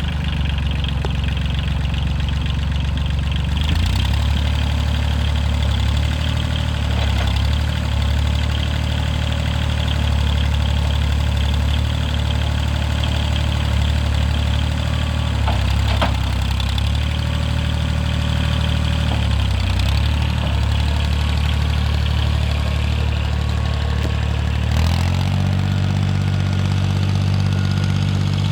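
Kubota farm tractor's diesel engine idling steadily. About 25 seconds in, the engine note steps up to a slightly faster idle.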